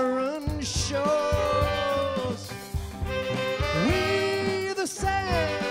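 Live band playing an instrumental passage: fiddle, saxophones and clarinet over upright bass, acoustic guitar and drums, the lead line holding notes that slide up and down in pitch.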